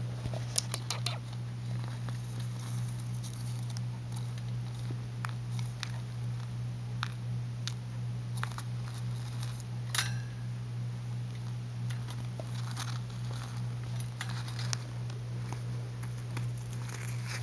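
Hamsters scrabbling about a plastic-lined playpen: scattered small clicks and scratches, a few of them sharper in the first second and one about ten seconds in, over a steady low hum.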